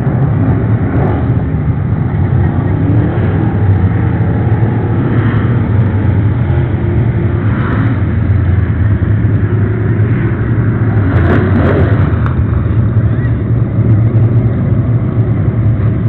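Pro Stock race cars' engines running together at speed as the field laps the speedway, a loud steady drone with no let-up.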